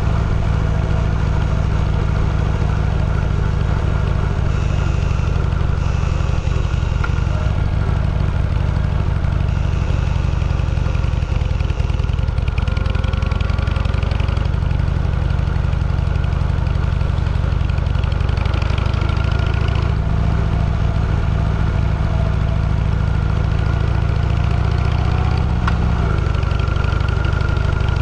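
Vehicle engine running steadily, a low even drone with little change in speed.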